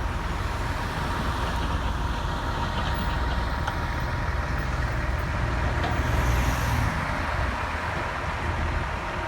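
Steady low engine rumble of road vehicles, with a short hiss about six seconds in.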